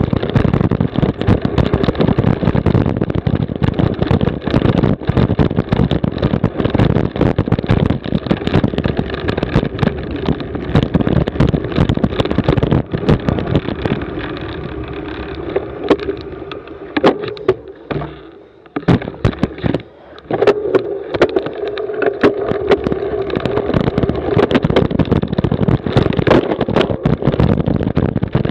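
Cyclocross bike ridden fast over a bumpy grass course: a loud, steady rumble with constant rattles and knocks from the bike over the ground. It eases off for a couple of seconds about two-thirds of the way through, then picks back up.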